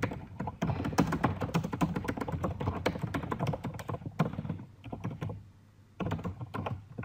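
Typing on a computer keyboard: a fast run of key strokes, a short pause near the end, then a few more keys.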